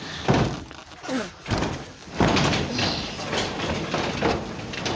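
Insulated garage door being lifted by hand, rolling along its tracks in uneven surges, loudest about two seconds in. The opener's trolley is released so that the door's spring balance can be checked.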